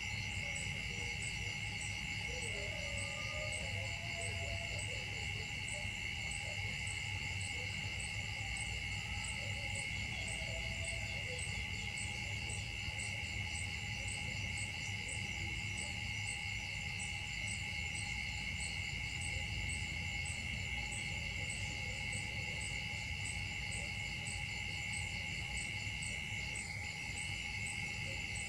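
Steady chorus of insects: continuous shrill high tones, with a fainter high chirp pulsing about three times every two seconds over a low outdoor hum.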